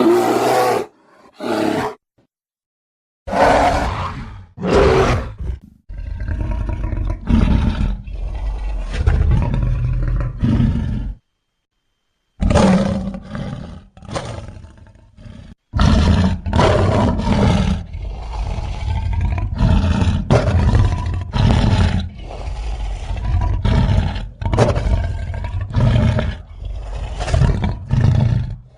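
Designed creature sound effect of an extinct giant short-faced bear (Arctodus): a few short roars in the first five seconds, then long runs of deep, pulsing growls and roars with brief pauses between them.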